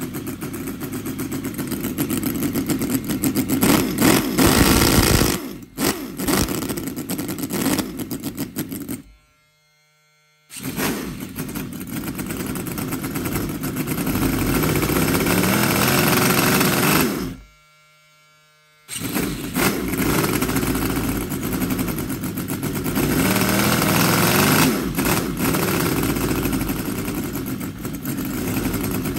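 HL VX-800 scale model V8 engine, fitted with a Walbro carburettor, running with the throttle worked by hand so that it rises and falls in speed. It stops twice for about a second and then runs again.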